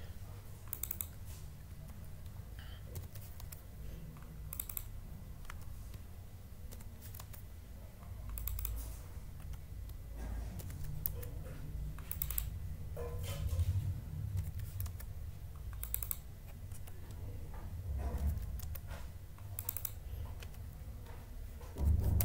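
Computer keyboard keystrokes and mouse clicks, coming in short clusters every second or two, over a low steady hum.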